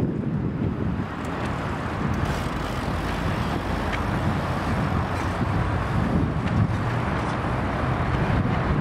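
Steady rushing noise with a heavy low rumble.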